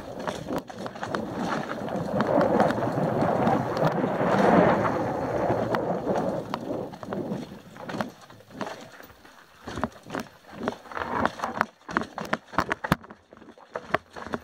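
Mountain bike descending a rocky trail: tyres rolling and crunching over loose stones and the bike rattling, dense and continuous for the first half. Later it breaks into separate clacks and knocks as the bike picks slowly over rocks and roots.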